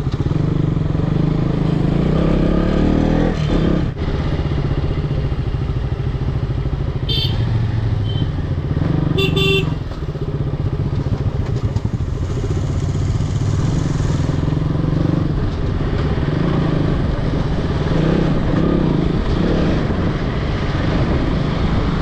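Single-cylinder engine of a KTM Duke motorcycle running under way, its pitch rising in the first few seconds as it pulls off. Two short vehicle horn toots about seven and nine seconds in.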